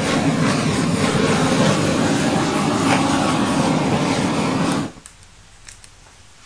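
Handheld gas torch flame hissing steadily as it is played over wet acrylic pour paint to pop air bubbles. It shuts off suddenly about five seconds in.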